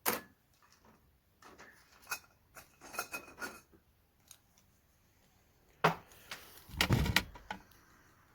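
Small tools and parts being handled on a workbench while wiring LEDs: a string of sharp clicks, snips and light clatters, with two louder knocks near the end.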